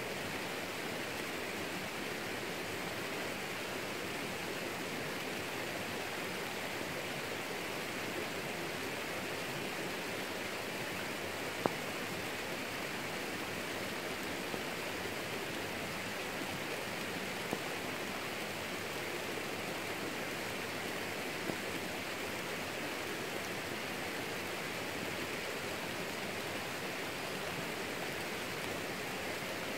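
Steady rain falling on leafy garden plants: an even hiss, with a few single drops ticking a little louder here and there, the clearest about a third of the way through.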